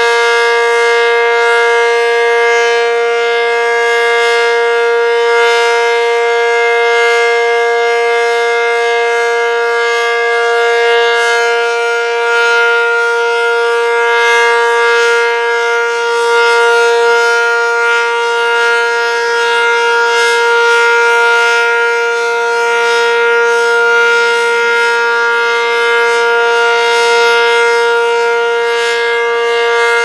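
ACA Cyclone 125 mechanical tornado siren sounding a loud, steady tone during a test, held at one constant pitch at full speed.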